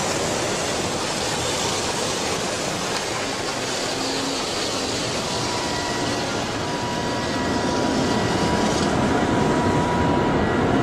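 Automatic tunnel car wash heard from inside the car: a steady rush of spraying water and wash machinery. A thin, steady whine joins about halfway, and the noise grows a little louder near the end.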